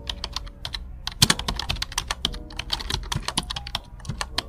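Computer keyboard typing: a rapid, uneven run of keystroke clicks over a low steady hum.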